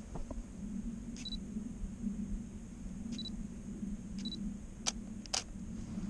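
DSLR camera taking photos: three short, high focus-confirmation beeps spread over the first four seconds, then two sharp shutter clicks near the end.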